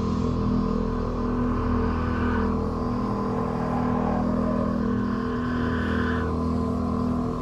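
Drone-metal music: a loud, heavily distorted low drone held on steady pitches, with its upper tones shifting about two and a half seconds in and again near six seconds.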